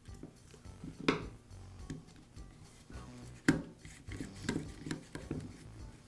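Small clicks and taps of a carbon brush and its plastic cap being pushed into the brush holder of a Makita angle drill's housing, then a screwdriver turning the brush cap tight. Two sharper clicks, about a second in and midway, and a run of small ticks near the end.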